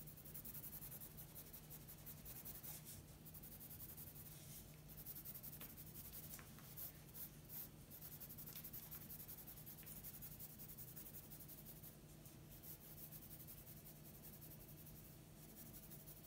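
Faint scratching of a graphite pencil on paper, drawing many short, repeated hatching strokes.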